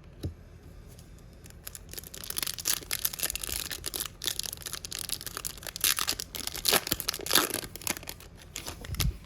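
A trading card pack wrapper being torn open and crinkled by hand, a dense run of crackling and ripping with sharp little clicks. A soft thump comes near the end.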